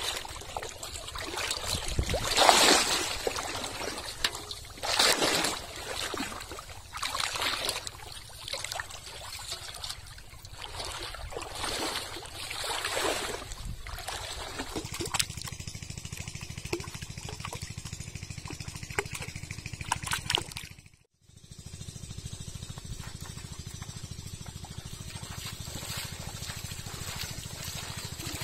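Shallow pond water splashing and sloshing in uneven surges as someone wades through it. Later it gives way to a steady low rumble that drops out briefly.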